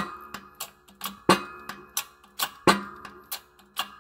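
Press working a shaft and bearing down into an Eaton M45 supercharger snout housing: a steady run of sharp metallic clicks with a short ring, about three a second, alternating louder and softer.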